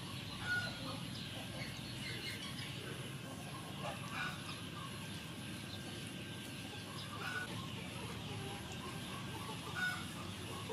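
Chickens clucking several times against a steady outdoor background, while a kitchen knife cuts through boiled pork belly on a wooden board.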